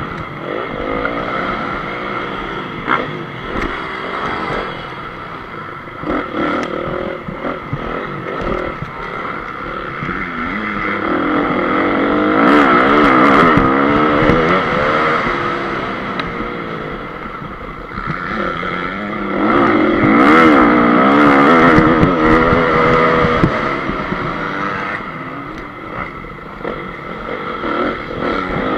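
Honda CRF250 motocross bike's four-stroke single-cylinder engine revving up and easing off again and again while being ridden, heard from an on-board camera, with two long full-throttle stretches about twelve and twenty seconds in.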